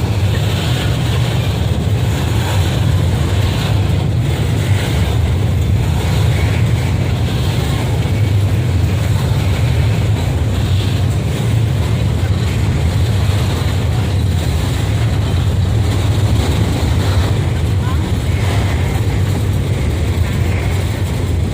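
Train running with a steady low rumble and a hiss of wind and track noise.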